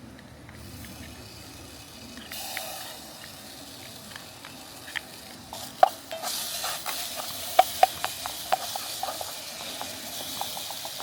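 Food sizzling as it fries in a small pan, stirred with sharp clicks of a utensil against the pan. The sizzle starts about two seconds in and grows louder about six seconds in.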